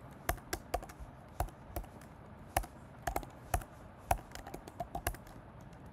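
Keystrokes on a computer keyboard: irregular typing, single key clicks and short runs with uneven pauses between them.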